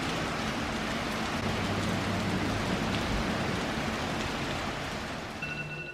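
Steady rain falling, a continuous hiss that fades toward the end, as a few faint pitched tones come in about five and a half seconds in.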